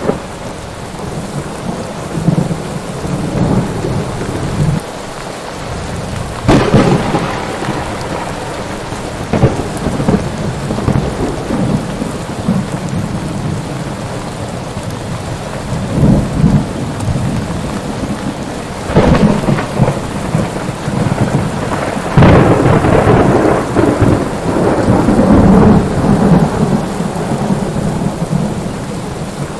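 Steady rain with thunder: sudden loud claps about six seconds in, and again around sixteen and nineteen seconds, then a long rolling peal near the end.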